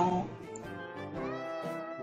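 Quiet instrumental background music with held notes that change pitch. The last syllable of a woman's spoken narration ends just at the start.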